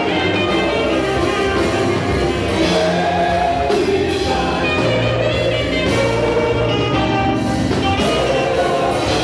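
Live high-praise gospel music: a saxophone playing an energetic lead over a full band with bass and percussion.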